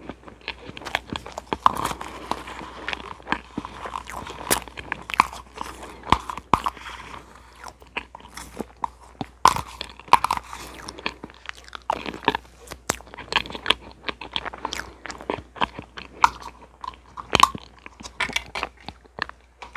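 Close-miked eating of a strawberry cream parfait: irregular wet chewing and sharp mouth clicks, with a spoon scraping the inside of its plastic cup.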